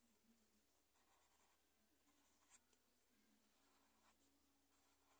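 Faint felt-tip marker strokes scratching and squeaking on paper as lines are drawn, with a soft tap about two and a half seconds in.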